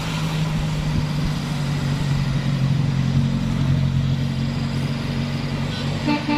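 Heavy truck or bus engine running as it passes, a steady low drone whose pitch sags slowly.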